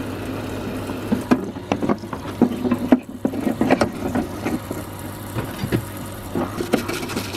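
Parts-washer pump running with a steady hum, its stream of cleaning fluid splashing into the tub, while the planer's metal housing knocks and clatters against the tub as it is handled under the stream. The knocks come thick in the first few seconds and thin out later.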